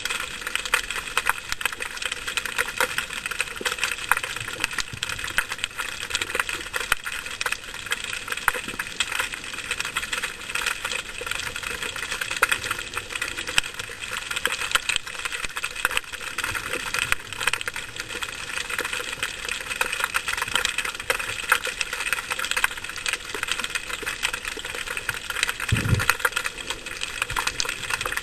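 Underwater crackling: a dense, steady stream of fast clicks and pops, heard through an underwater camera. One short low thump near the end.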